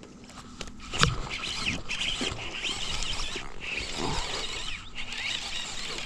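Rustling handling noise of a baitcasting rod and reel as a bass is hooked and fought, with a sharp knock about a second in. Small birds chirp repeatedly throughout.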